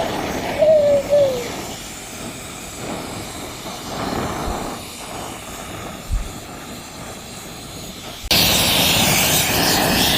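Oxy-acetylene torch flame hissing steadily while heating a steel bar to anneal it. About eight seconds in, a much louder, fuller rushing hiss starts abruptly: the rosebud heating tip, used because the cutting torch wasn't giving enough heat. There are a few short wavering tones near the start.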